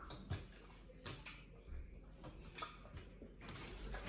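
Faint, scattered clicks and small taps from eating at a table: mouth and chewing sounds and food being handled, over a low room hum.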